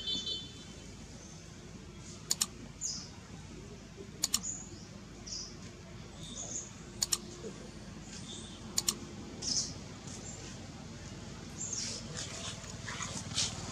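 Computer mouse-click sound effects: four sharp double clicks about two seconds apart. Short high bird chirps come in between, over a low steady hum.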